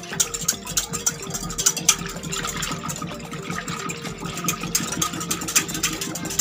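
Wire balloon whisk beating a thin pandan-juice and egg batter in a glass bowl, its wires clicking rapidly and unevenly against the glass amid a liquid swish, as the sugar is whisked in to dissolve.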